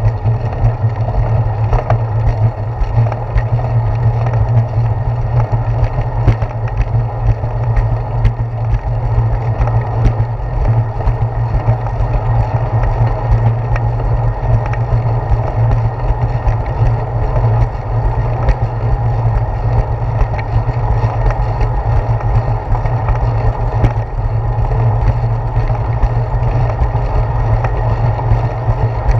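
Steady rumble and rattle of a bicycle rolling along a concrete path, carried through a handlebar-mounted GoPro Hero 4, with frequent small knocks from bumps and joints in the path.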